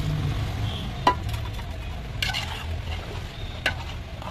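Metal slotted spatula stirring thin masala gravy in a large aluminium pot, with sharp metal clinks against the pot about a second in, just after two seconds, and near the end, over a steady low rumble.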